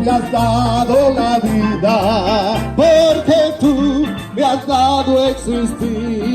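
Latin-style band music with a singer holding long notes in a wide vibrato over a steady bass line and percussion.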